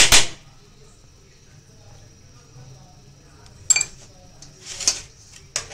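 A hand mixing a dry flour coating on a plastic tray: a few short scrapes and clinks, the loudest right at the start and three more in the last two seconds.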